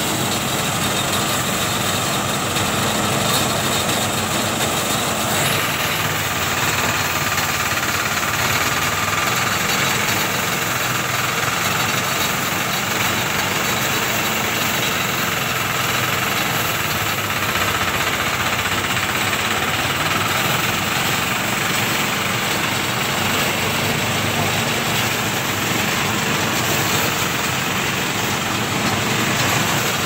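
Portable engine-driven rice thresher running steadily while threshing rice, its engine and threshing drum keeping one constant mechanical sound.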